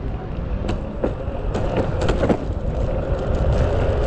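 Mototec 600W belt-drive electric skateboard under way: its hard wheels rumble over concrete and clack as they cross the joints, with a steady motor whine in the second half.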